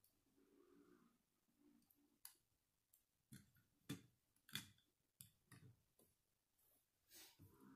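Faint clicks and taps of a small plastic Lego car being set down and pushed on a wooden tabletop, about half a dozen sharp ones spread over a few seconds.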